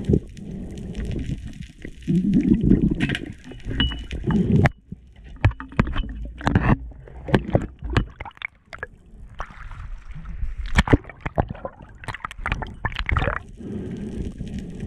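Underwater sound picked up through a camera housing: water rushing and gurgling past the camera, with a dense run of sharp clicks and knocks through the middle.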